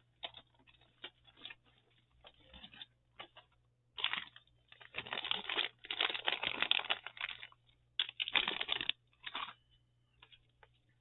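Paper and small craft items being handled and shuffled, giving irregular rustling and clattering bursts that are busiest from about four to nine seconds in.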